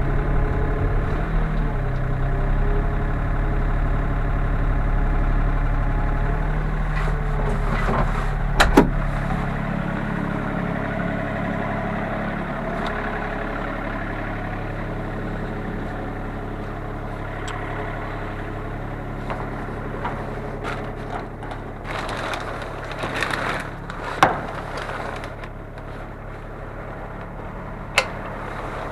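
Diesel engine of a Sany SY35U mini excavator running steadily, heard from inside the cab; about nine seconds in the engine sound drops lower and quieter. A few sharp clicks or knocks come through over it.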